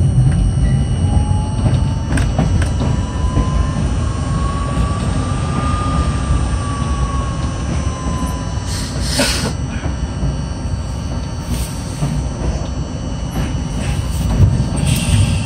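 R42 subway train running on the tracks: a steady heavy rumble of wheels and motors, with a traction-motor whine that rises in pitch over the first six seconds and then falls away. Brief high hissing noises come about nine seconds in and again near the end.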